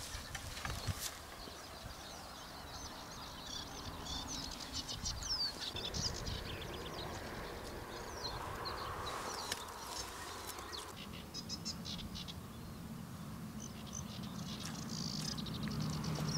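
Songbirds singing around a creek bank: rapid chirping trills and short rising whistles, on and off. Rustling and a few knocks near the start as the rod is carried through the bushes, and a steady low hum that comes in about eleven seconds in.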